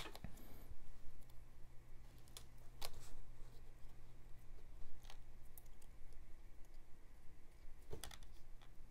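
Light clicks and taps of fingers handling a MacBook Pro display's hinge cover and thin backlight flex cable, with a handful of sharper ticks two to three seconds apart, over a faint steady low hum.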